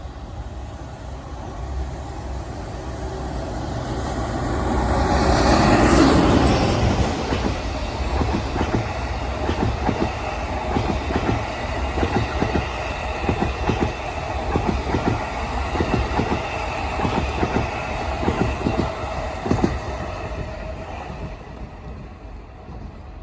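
A locomotive-hauled delivery train of new Tokyo Metro 18000-series subway cars passes a level crossing. The locomotive goes by loudest about six seconds in, then the towed cars' wheels clack in a steady rhythm over the rail joints and fade near the end. Meanwhile the crossing alarm rings steadily and stops shortly before the end.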